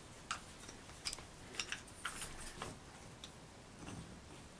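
Faint, irregular clicks and light knocks from the parts of a small articulated precision vise being handled and moved, roughly one every half second.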